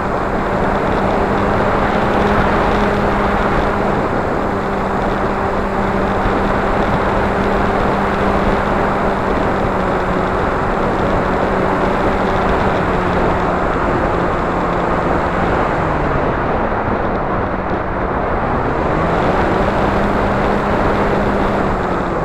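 Flying wing's motor and propeller droning at a steady pitch under heavy wind rush over the onboard action camera's microphone. The motor note dips and comes back up twice late on.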